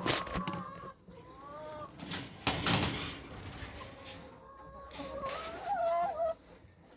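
Hens clucking and making soft, wavering calls, with a brief loud rustle about two and a half seconds in.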